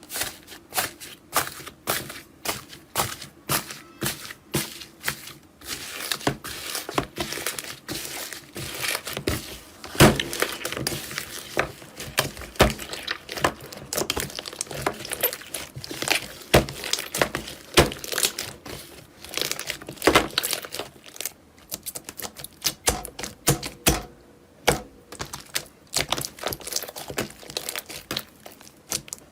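Slime being squeezed and poked by hand, giving a run of rapid, irregular sticky clicks and crackles, with a brief lull about three-quarters of the way through.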